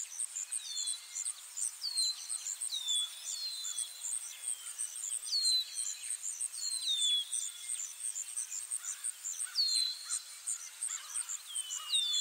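Outdoor birdsong: a bird repeats a sharp whistle that slides down in pitch, about once a second. Underneath runs steady, very high, rapid chirping.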